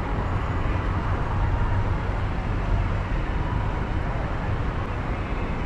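Steady city traffic noise with a low rumble, heard from a car stopped at a red light on a busy boulevard.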